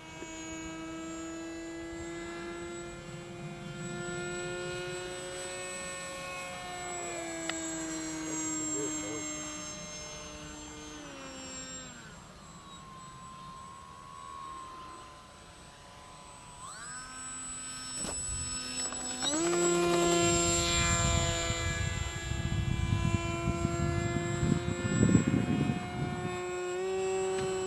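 Electric motor and propeller of a Depron foam flying-wing model aircraft in flight, a steady whine with several pitches together. The pitch falls about eleven seconds in, then climbs back in two steps around seventeen and nineteen seconds, as the power is changed. Low rumbling joins it in the last several seconds.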